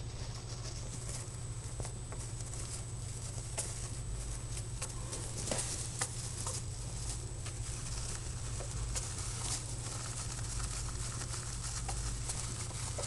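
Hamster rustling a paper tissue and scrabbling in its cage bedding: light, scattered rustles and small clicks over a steady low hum.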